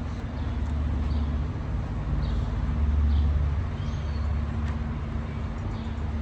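Low, steady rumble of a motor vehicle's engine running, with a constant hum and a slow swell in level about three seconds in.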